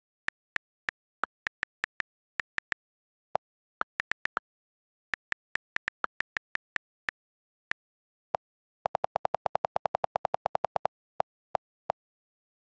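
iPad on-screen keyboard key clicks as a sentence is typed, one sharp click per tap at an uneven typing pace. Near the middle the clicks stop, then a fast, even run of lower clicks, about ten a second for two seconds, follows as the delete key is held and erases the text, with three more delete clicks after it.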